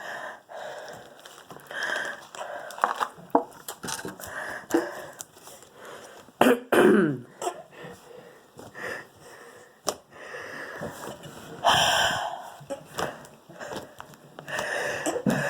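A person breathing hard and loudly into the microphone, a run of heavy breaths in and out, with a short falling voiced sound about seven seconds in.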